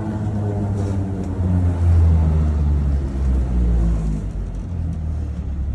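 Vintage Vienna type M tramcar running, its motors and running gear giving a loud low hum whose tones shift in steps.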